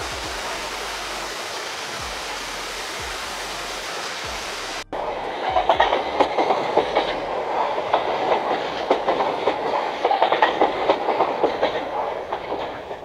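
AI-generated sound effects: steady falling rain, an even hiss of drops. About five seconds in it cuts to a passing train, a rapid clatter of wheels over the rails, fading near the end.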